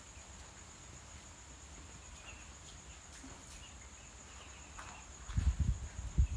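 Crickets keep up a steady high trill, with a few faint, short duckling peeps. About five seconds in, loud low rumbling thumps start on the microphone and become the loudest sound.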